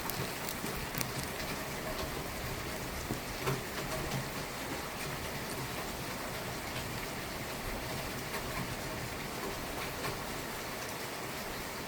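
Steady rain falling during a thunderstorm, with scattered individual drops ticking close by.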